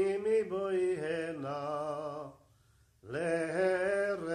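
A man's voice singing long, held notes in a slow chant, with no instruments heard. It breaks off a little over two seconds in and starts again about half a second later.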